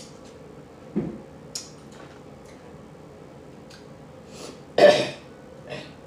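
A person burping while eating snow crab legs, with short smacking clicks of mouth and shell between. The loudest sound comes about five seconds in.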